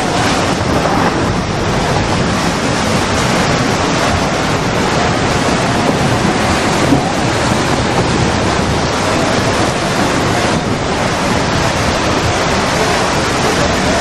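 Steady, loud rush of tsunami floodwater surging across flooded ground, with wind on the microphone.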